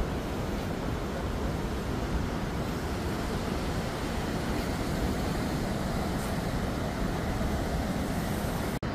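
Steady roar of rushing water from the Rhine Falls, broken by a brief dropout near the end.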